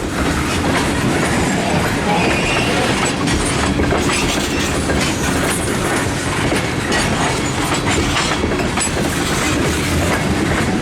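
Freight train of tank cars rolling past, wheels clattering steadily over the rail joints, with a faint high wheel squeal about two seconds in.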